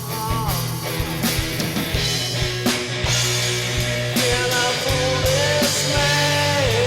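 Background rock music: a bending lead guitar melody over bass and drums.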